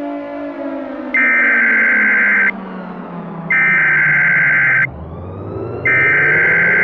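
Three harsh digital bursts of Emergency Alert System SAME header data, each about a second and a half long and about a second apart. Under them an air-raid-style civil defense siren winds down in pitch, then starts rising again about five seconds in.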